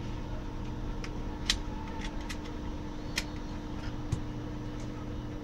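Plastic casing of a laptop power adapter being handled and fitted together by hand: about four light, sharp plastic clicks, the loudest about a second and a half in, over a steady low background hum.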